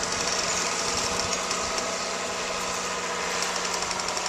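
Truck engine running steadily with a constant low hum.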